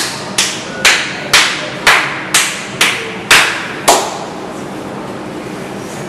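Hand claps keeping a steady beat, about two a second: nine sharp claps, then they stop a little before halfway through.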